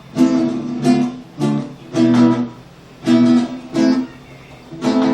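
Acoustic guitar strumming chords in a repeating rhythmic pattern, about seven or eight strokes over a few seconds.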